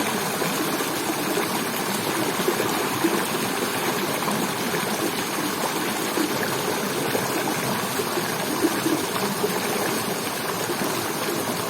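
River water flowing steadily: an even rushing and burbling of the current.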